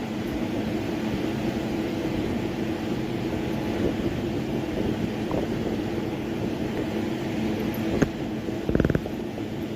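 A steady low mechanical hum, with a sharp click about eight seconds in and a short buzzing sound just before nine seconds.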